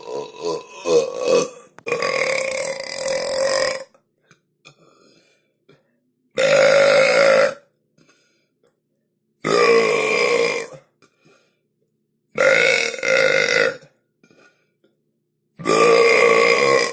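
A person belching loudly and repeatedly: a choppy run of short burps, then one long burp of about two seconds, then four separate burps of just over a second each, about three seconds apart.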